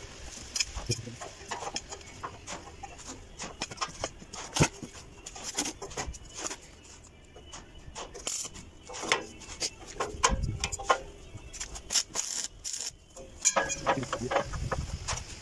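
Irregular clicks and knocks of metal being handled during fitting of a steel spiral staircase, with two dull thumps in the second half.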